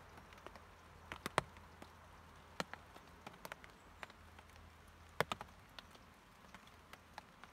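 Faint, scattered drips tapping on a tarpaulin overhead: irregular sharp taps, roughly one or two a second.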